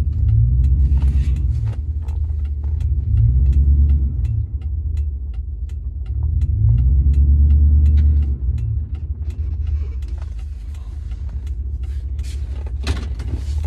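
Low vehicle rumble heard inside a truck's cab, swelling and fading three times, with a steady fast ticking throughout and a short thump near the end.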